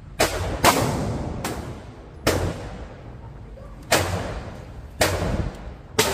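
Gunshots echoing in an indoor shooting range: about seven sharp reports at irregular spacing, one of them fainter, each followed by a short ringing echo off the concrete.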